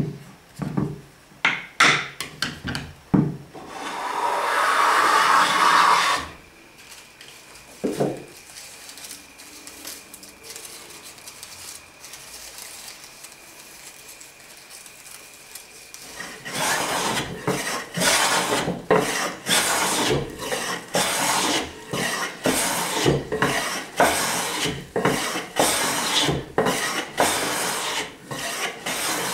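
Homemade Japanese kanna hand plane shaving a wooden board: after a few sharp taps and one longer scraping stroke, a quiet stretch, then from about halfway on a run of short, quick planing strokes, each a scrape of the blade peeling a shaving.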